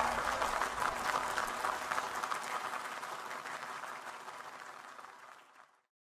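Crowd applause, fading out gradually and stopping just before six seconds in.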